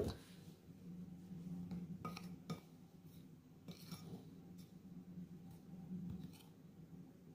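A metal spoon stirring a raw egg into flour in a bowl, with faint scrapes and a few light clinks against the bowl. A single sharp click right at the start is the loudest sound.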